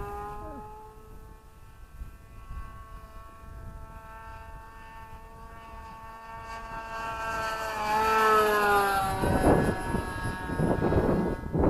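Thunder Tiger 61 glow engine of a HobbyKing Race Cat RC plane in flight, a steady high-pitched drone that grows louder and drops in pitch as the plane passes about nine seconds in. Wind then buffets the microphone.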